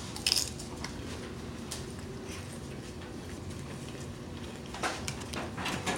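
Eating utensils clinking and scraping against a dish: one sharp clink about a third of a second in, then a few light taps, and a quick run of clicks and scrapes near the end.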